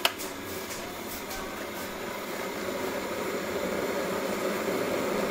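Cookworks cordless electric kettle switched on with a click, then heating the water with a steady rushing noise that slowly grows louder.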